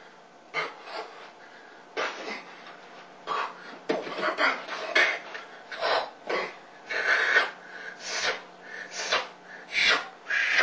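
Short breathy mouth sounds voiced by a popping dancer to mark each hit, sparse at first, then about two a second from about four seconds in.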